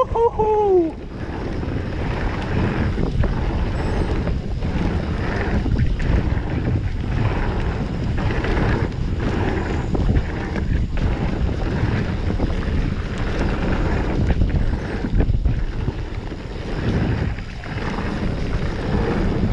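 Wind buffeting an action camera's microphone and a mountain bike's knobby tyres rumbling over a dirt singletrack at speed, with frequent irregular knocks and rattles from bumps in the trail. A brief squeal that rises and then falls in pitch in the first second.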